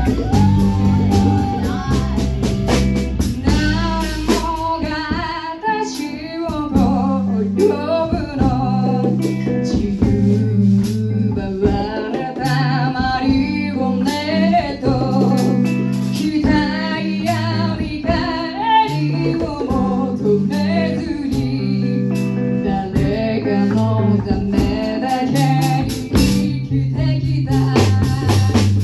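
Band playing a song: a singer's voice over guitar, bass and drums.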